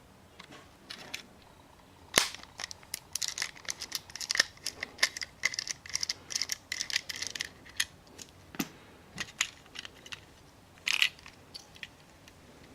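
Hard plastic being handled: a run of sharp clicks and knocks with scratchy rattling between them, thinning to scattered clicks and one short rattle near the end.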